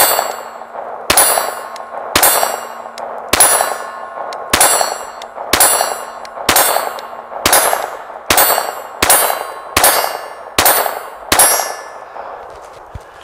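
Taurus TX22 .22 LR pistol fired unsuppressed, about thirteen sharp shots roughly a second apart, quickening slightly near the end, each followed by the clang and ring of a steel target being hit.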